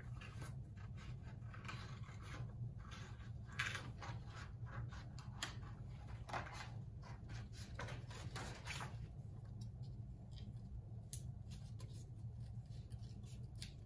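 Small scissors snipping through construction paper in a string of short, quick cuts, close together for the first nine seconds or so and sparser after, over a steady low hum.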